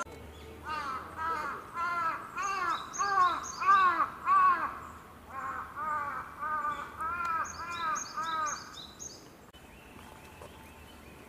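Crow cawing in a fast run of harsh calls, about two a second, with a short pause midway and a stop near the end.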